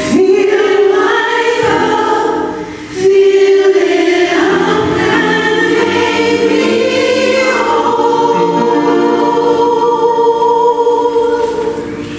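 Church choir singing, with a short break about three seconds in, then a long held chord through the last few seconds.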